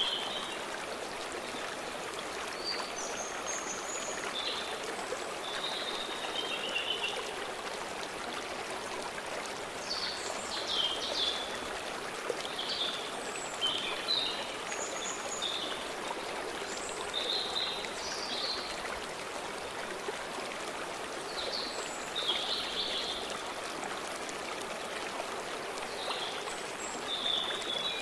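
Steady rushing of a flowing stream, with songbirds chirping in short scattered calls over it every second or two.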